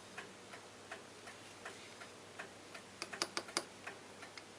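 A mechanical clock ticking steadily, a little under three ticks a second. About three seconds in, a quick run of sharper clicks and taps, small metal or glass objects being handled on the bench.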